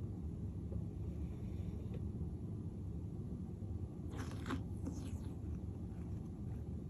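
Slime being worked by hand under a steady low handling rumble, with a short run of crackly, sticky clicks about four seconds in and a few fainter ones just after.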